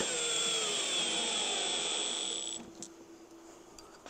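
Cordless drill driving a fastener to mount a tractor seat back: a steady high motor whine that slides slowly lower in pitch as it runs under load, stopping a little over halfway through, followed by a few light clicks.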